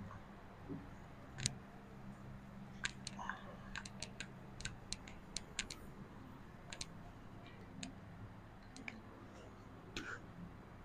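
A duster wiping a whiteboard: faint quick ticks, about four a second, for a few seconds in the middle, then a few scattered clicks. A faint low hum sits underneath in the first half.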